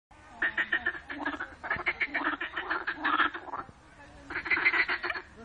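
A chorus of frogs giving rapid, pulsed breeding calls, quite noisy, in two bouts with a short lull about three and a half seconds in.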